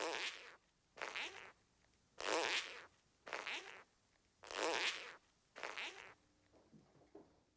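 A comic sound gag: six short, raspy bursts of noise, about one a second, each lasting around half a second.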